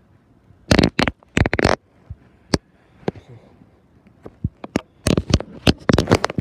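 Scratchy rustling and crackling as a hand plays with a cat on a fabric cover. The sounds come in loud bursts, a cluster about a second in and another from about five seconds on.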